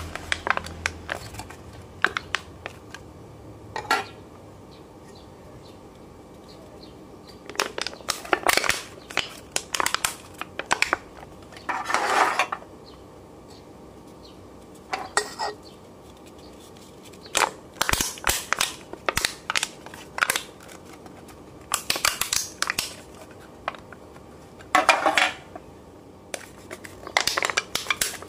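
Thin aluminium Singha beer cans squeezed by hand, their walls crinkling and popping in sharp crackly bursts, with short pauses between squeezes.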